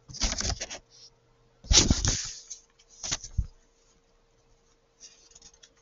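Paper sheets of a worksheet packet being handled and moved across a desk: three rustles with dull bumps, the loudest about two seconds in, then a few faint ticks near the end.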